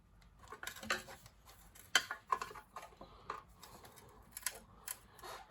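Scattered light clicks and taps of hands and tools working on a small engine, the sharpest about two seconds in.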